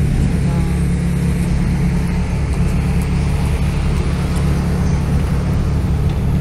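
Steady low hum of an engine running, with no change in level.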